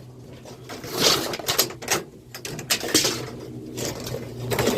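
A tape measure being handled: a few scattered clicks and light rattles, over a steady low hum.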